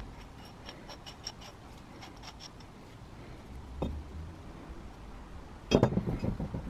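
Metal parts of a 1938 Shelly spiral jack handled by hand on a wooden bench: light clicks, a single knock about four seconds in, then a louder clatter of metal knocking near the end as the threaded screw is fitted into its cast housing.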